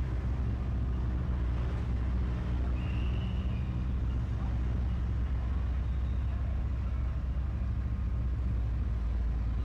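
Rock-crawling competition 4x4's engine running at low revs as the truck crawls down a rock obstacle: a steady low rumble.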